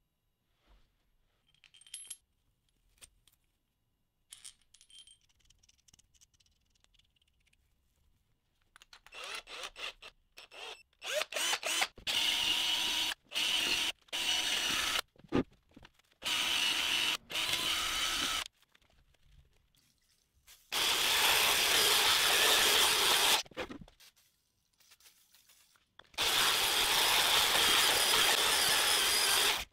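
A Protool DRP 10 EQ electric drill runs in repeated bursts of one to three seconds, spinning abrasive against the bearing bores and surface of a cast-iron spindle housing to clean and polish them. The first eight seconds hold only a few light clicks of handling.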